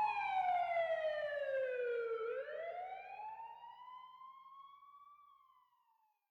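A siren wailing. Its pitch slides down, swings back up about two seconds in, then falls again as it fades away.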